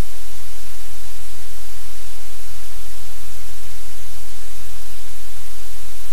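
Loud, steady hiss of static with a low electrical hum underneath, unchanging throughout.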